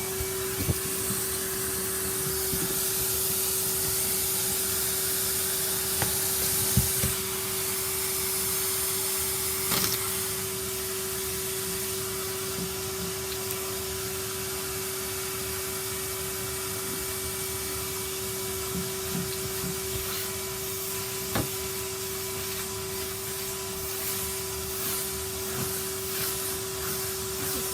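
Vacuum cleaner running steadily with a constant motor hum, and a few light knocks at scattered moments.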